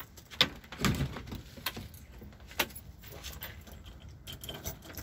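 Keys jingling with a few sharp clicks and knocks, one with a dull thump about a second in: a house door being unlocked and opened.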